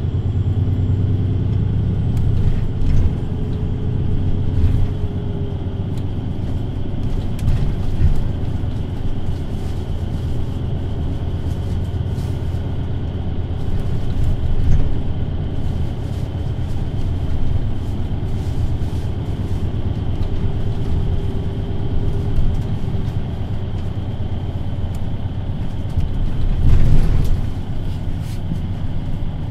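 VDL Citea LLE 120 city bus heard from inside the passenger cabin while running: a steady low engine and road rumble with a faint whine that drifts in pitch, and light interior rattles. A louder bump about three seconds before the end.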